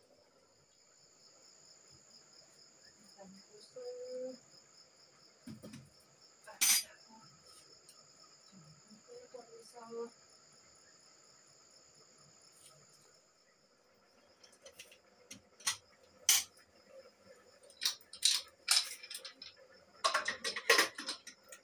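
Steel pots, bowls and lids clinking and knocking as they are handled on a clay wood-fired stove, in scattered strikes that grow into a busy clatter in the last few seconds. A steady high-pitched insect chirring runs underneath.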